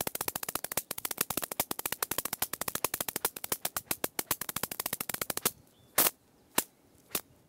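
A pair of drum brushes played by hand: a fast, even stream of sharp clicks, about a dozen a second, that stops about five seconds in, followed by three single louder strikes about half a second apart.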